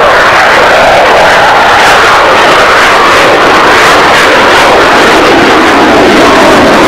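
Jet aircraft flying overhead: a loud, steady rushing engine noise.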